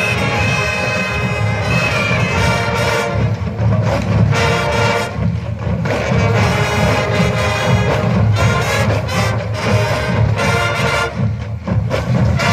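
Massed band playing, with brass instruments carrying sustained notes over a strong low end.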